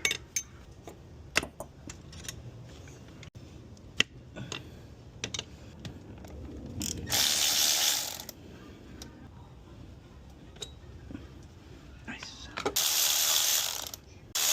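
Hand ratchet wrench with a 12 mm socket turning a bolt: scattered single clicks, then two longer runs of rapid ratcheting, one about seven seconds in and one near the end.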